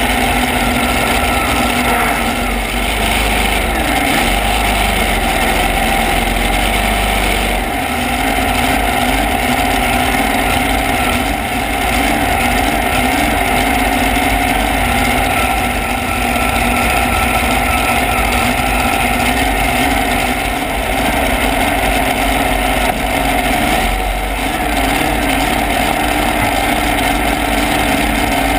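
Supercharged engine of a modified pulling tractor idling steadily.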